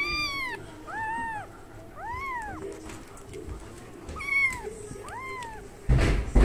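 Young kittens meowing, five high calls that rise and fall, about one a second with a pause in the middle, as they beg for a milk bottle held up to their cage. A loud rustling knock comes right at the end.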